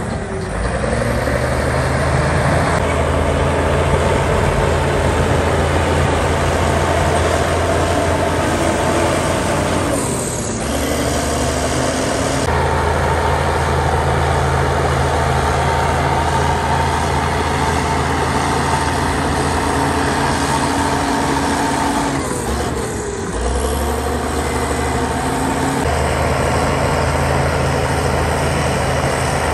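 Diesel engine of heavy earthmoving machinery running steadily. The engine note shifts abruptly about 10 and 23 seconds in.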